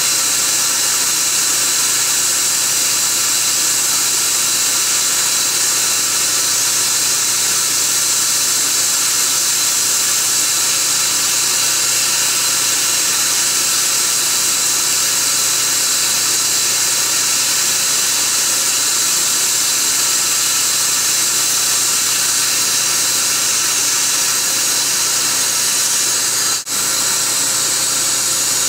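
Dental treatment equipment running during a laser root canal: a loud, steady high hiss with faint steady tones under it, cutting out for an instant near the end.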